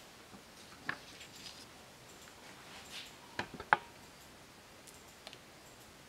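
Quiet room tone broken by a few light clicks: one about a second in, then a quick run of three about three and a half seconds in, the last the loudest.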